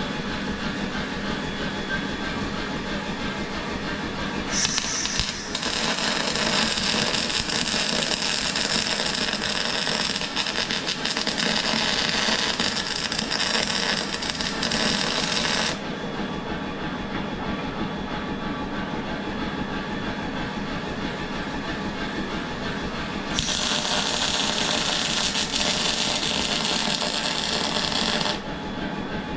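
Metalworking noise over a steady workshop machine hum: two long stretches of loud, hissing, crackling noise, one lasting about eleven seconds from about four seconds in and a shorter one of about five seconds near the end.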